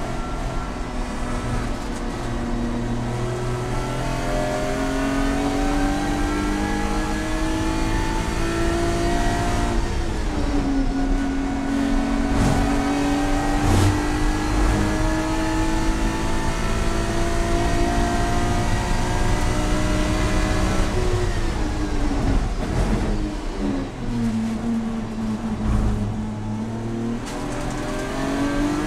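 BMW track car's engine heard from inside the cabin, pulling hard at high revs. Its pitch climbs steadily, dips briefly about ten seconds in, and holds high for a long stretch. It then falls away around twenty-two seconds as the car slows for a corner, and starts climbing again near the end.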